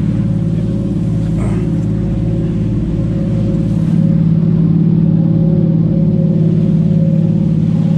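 Sportfishing boat's inboard engines running steadily under way, a loud even drone, a little louder from about four seconds in.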